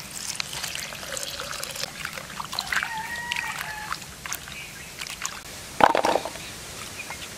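Water poured over sliced bitter melon in a clay pot and sloshed about as the pieces are rubbed clean by hand, with splashing and dripping. A short, louder sound stands out just before six seconds in.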